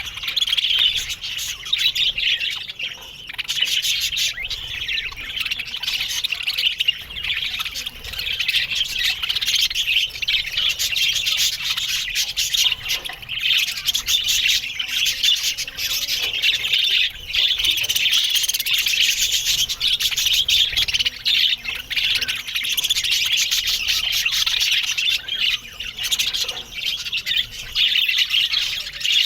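A colony of budgerigars chattering continuously, with many overlapping chirps, warbles and squawks.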